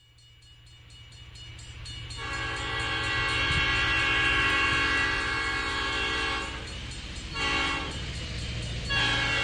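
Train sound effect opening a dance song about boarding a train: a train's rumble fades in from silence, then its multi-note horn sounds a long blast about two seconds in, a short blast, and starts another near the end.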